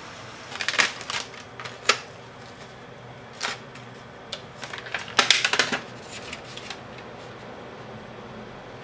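Thin clear plastic food pack crackling and clicking as it is handled and opened, in short bursts about a second in and again around five seconds in.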